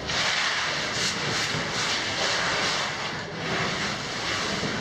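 Water in a cave stream passage, a steady rushing hiss that swells a little now and then.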